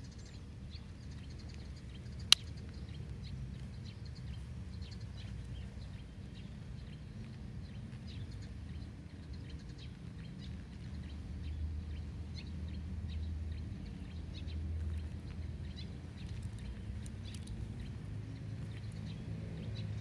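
One sharp click about two seconds in, the blade of a Wenger Ranger 04 Swiss Army knife snapping open, over a steady low rumble and faint bird chirps.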